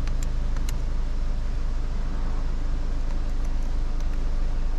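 Steady low hum of a 2016 Ford Fusion SE idling, heard from the car's cabin, with a few faint light clicks.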